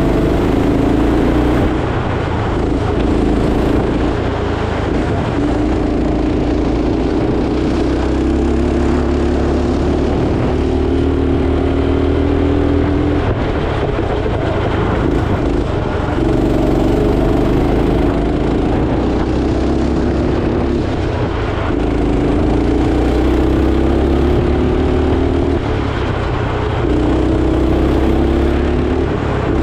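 Go-kart engine heard from onboard, its pitch climbing steadily along each straight and dropping off as the throttle lifts for the corners, about six times over.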